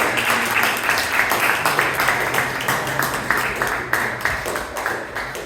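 Audience applauding, a dense run of many hand claps that thins out and fades toward the end.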